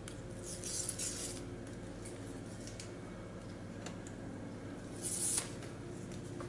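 Stickers being ripped off a laptop's case by hand: two short hissing rips, about half a second in and again around five seconds in, with a few faint ticks and a steady low hum underneath.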